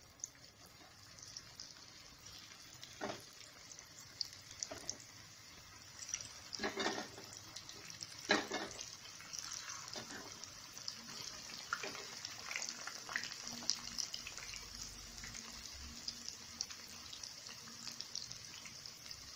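Whole potatoes deep-frying in hot oil in a kadhai: a steady, high, crackling sizzle that grows as more potatoes go in. Several sudden knocks or splashes are heard as they are added.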